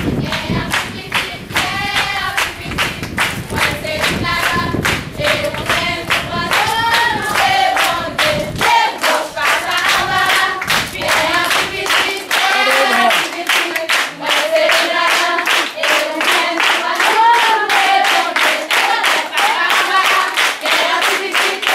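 A group singing a song together without instruments, clapping along on a steady beat. A low rumble sits under the first third and drops away.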